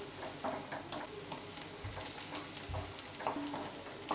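Wooden spatula stirring onion and coriander frying in oil in a stainless steel kadai: a steady low sizzle with frequent short scrapes of the spatula against the pan.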